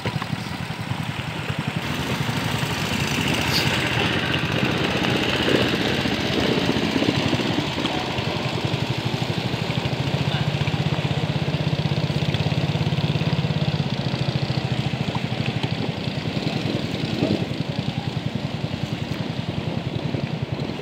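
Boat engine running steadily under way, a fast even pulsing throughout, with a second, smoother engine tone swelling for a few seconds midway as another motorboat passes close by.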